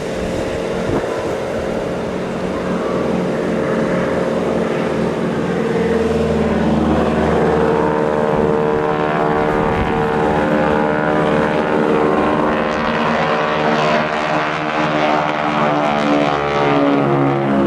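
Boeing Stearman biplane's Pratt & Whitney radial engine and propeller droning in flight, a steady pitched drone that grows louder about six seconds in as the aircraft comes closer.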